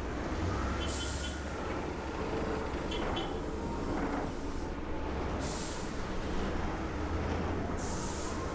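Heavy M3 amphibious rig vehicles running with a steady low rumble, broken by short hissing bursts about a second, five seconds and eight seconds in.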